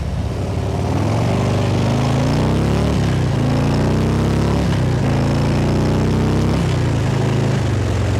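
Harley-Davidson Ultra Limited's V-twin engine accelerating through the gears. The pitch climbs, drops at two upshifts about 3 and 5 seconds in, then settles to a steady cruise near the end. Wind buffets the helmet-mounted mic throughout.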